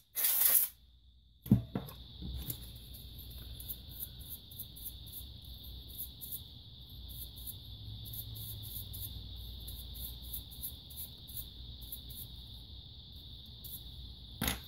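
A paintbrush's bristles flicking over a laptop cooling fan in quick repeated strokes, about two or three a second, while dust is cleaned off. A steady high-pitched whine and a low rumble run underneath from about a second and a half in until just before the end.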